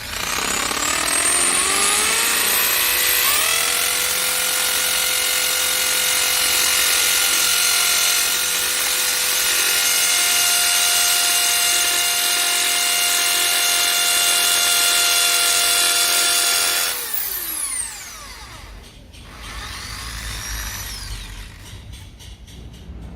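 Electric drill motor spinning up over a few seconds and then running at a steady high speed with a whine. It winds down about seventeen seconds in, and near the end it gives a brief second spin-up and wind-down.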